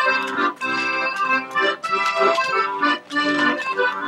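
Traditional southern French folk dance music: a sustained melody played in short, evenly paced phrases.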